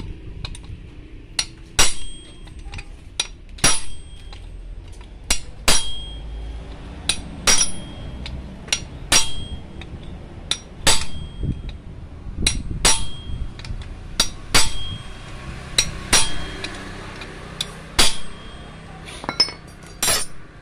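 Hammer blows on a steel punch held against the shaft of an oil-less compressor's electric motor, driving the shaft out through its bearing in the aluminium housing. The strikes are sharp and metallic, each with a brief ring, often coming in pairs, about one a second.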